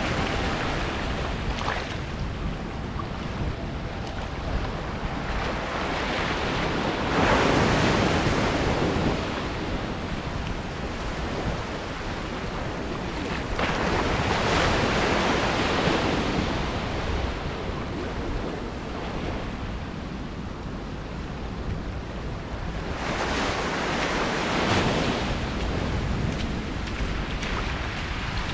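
Atlantic surf breaking on a sandy beach and washing up the shore, swelling loudest three times, about 7, 14 and 23 seconds in, with wind rumbling on the microphone.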